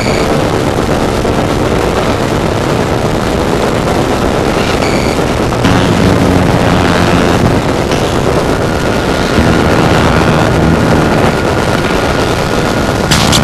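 Harsh noise music: a loud, dense wall of distorted noise with no beat or melody. A low drone thickens about halfway through, a thin steady high tone joins it, and it breaks into dense crackling near the end.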